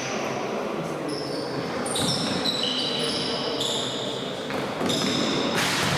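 Sports shoes squeaking in quick, overlapping chirps on a sports hall floor during tchoukball play, with a thud about two seconds in and faint voices in the hall.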